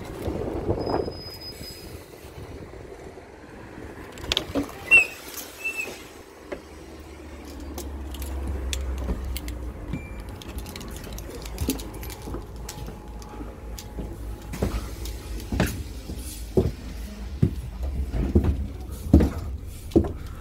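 Inside a Stagecoach double-decker bus: knocks and clicks from boarding and handling the phone, with two short high beeps about five seconds in. From about six seconds in, a steady low rumble of the bus engine runs underneath, with more knocks over it.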